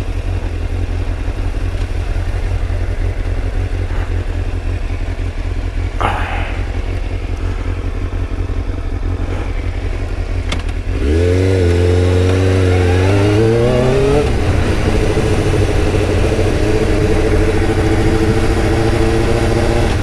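Motorcycle engine running with a steady low rumble. About halfway through it grows louder and its pitch rises as the bike accelerates, then it settles into a steady cruise.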